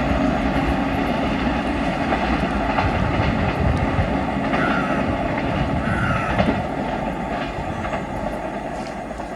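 The 10103 Mandovi Express passenger train running through at speed, its wheels clattering over the rail joints under a steady rushing noise that dies away over the last couple of seconds as the train passes.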